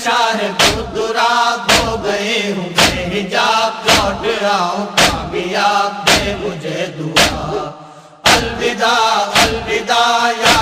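Chanted devotional song, a lament for the martyrs of Karbala, sung over a heavy drum beat that strikes about once a second. The sound drops out briefly a little before the eighth second, then the beat and singing return.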